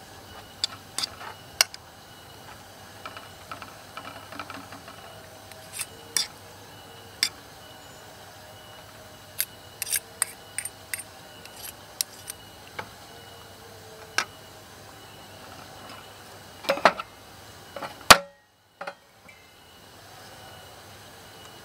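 Camp cookware and metal utensils clinking and tapping in scattered sharp knocks over a faint steady background. The sound drops out to near silence for about a second and a half near the end.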